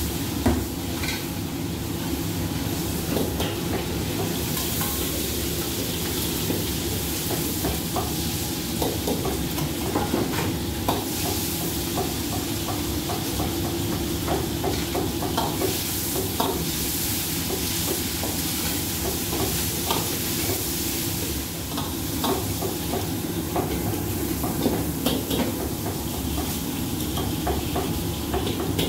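Food frying and sizzling in a wok on a gas wok range, over a steady low rumble, with frequent clinks of a metal ladle against the wok and steel bowls.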